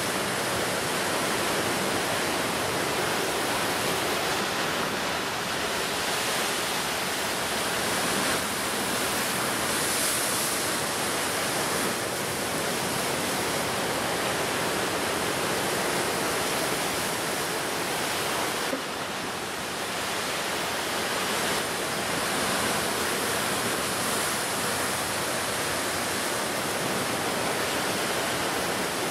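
Ocean surf breaking on the shore in a continuous, dense rush of water, swelling gently now and then.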